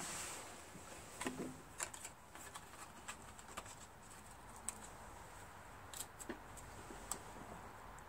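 Faint, scattered small clicks and light handling noise as an ignition magneto coil and its wire are handled and positioned against a small engine's flywheel.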